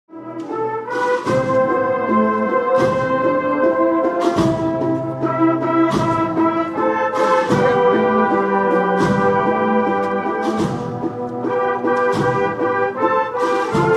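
Background music: brass band or orchestral brass playing a tune over a steady beat.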